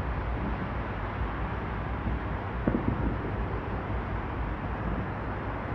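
Distant fireworks bursting: a muffled bang about three seconds in, with a few fainter pops after it. Under it runs a steady low rumble of outdoor background noise.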